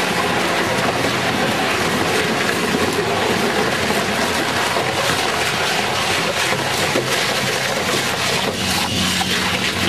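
Rotary shear shredder cutting whole truck tyres between its turning hooked blades. It makes a loud, steady grinding din, with frequent sharp cracks and snaps as the rubber is torn, and these come thickest about six to nine seconds in.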